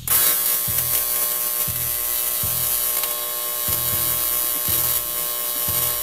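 Electric arc welding on an aluminium gearbox casting: a steady buzzing hiss from the arc that strikes up suddenly at the start and holds unbroken.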